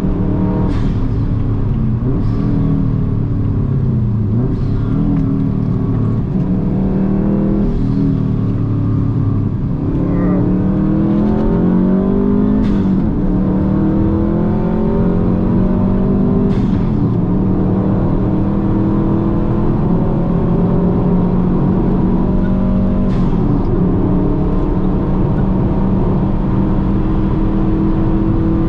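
A car's engine driven hard on a race track, its pitch climbing under acceleration and dropping back at each gear change, again and again. Brief sharp snaps come every few seconds.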